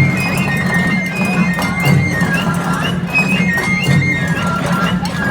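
Japanese bon dance music: drum hits under a high, wavering, sliding melody.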